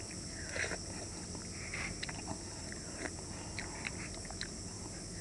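A person slurping and chewing instant cup noodles: two short slurps, about half a second and nearly two seconds in, with small sharp mouth and spoon clicks between them.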